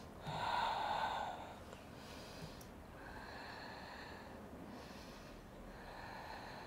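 A woman breathing out audibly: one long, breathy exhale in the first two seconds, then quieter breaths.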